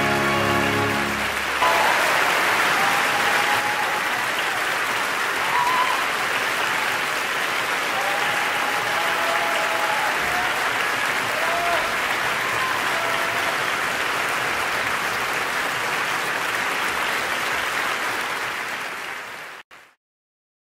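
A held orchestral chord ends about a second and a half in, and a theatre audience breaks into steady applause, with a few voices calling out over it. The applause cuts off suddenly near the end.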